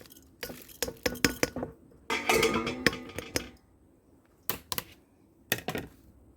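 Washed rice being tipped into a metal pressure cooker: clattering of the container against the pot, then a rush of grains going in lasting about a second and a half, then a few separate knocks near the end.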